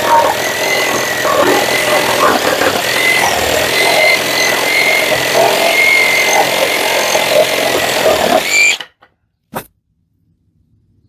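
Parkside Performance PSSAP 2028 A1 20 V cordless reciprocating saw running and sawing through wood with a wavering whine, stopping abruptly near the end. A single knock follows.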